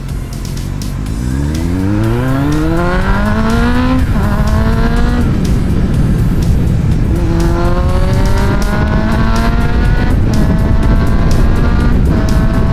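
Kawasaki Z800's inline-four engine under hard acceleration at full throttle, the pitch climbing steeply and dropping at each upshift, several times through the gears. Heavy wind rush on the helmet microphone lies under it.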